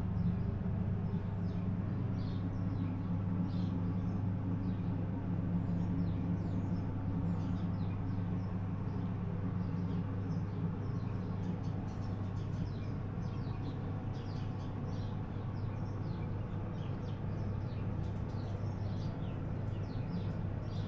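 Steady low machine hum, with small birds chirping faintly throughout.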